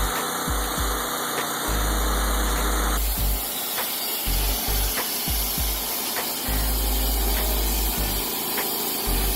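Sawmill machinery running, with background music and deep recurring thumps; the sound changes abruptly about three seconds in.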